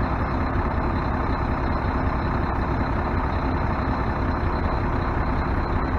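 Mack MP7 inline-six diesel engine idling steadily, its newly replaced variable-geometry turbo spooling at idle with barely any boost.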